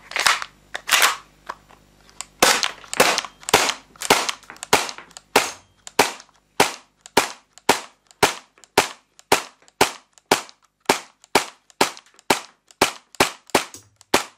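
Tanio Koba VP70 airsoft replica pistol fired repeatedly: a string of about two dozen sharp shots, a few uneven ones at first, then a steady pace of about two a second.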